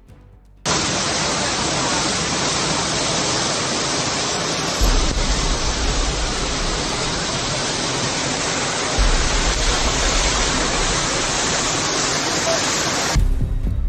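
Loud, steady rush of floodwater that starts abruptly about a second in and cuts off shortly before the end. A deeper low rumble joins about five seconds in and again about nine seconds in.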